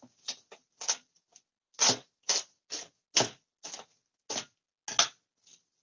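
Plastic cling wrap crinkling as it is handled, pulled and pressed over a glass bowl: a string of sharp, irregular crackles, about two a second.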